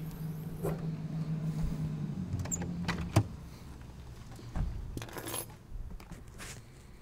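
Car door being opened by hand: a low hum for the first two seconds, then a sharp latch click about three seconds in, followed by a few knocks and a brief rustle of plastic sheeting.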